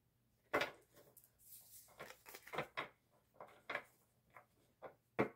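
Stiff oracle cards being shuffled by hand: an irregular string of short slaps and flicks of card stock, about a dozen over a few seconds.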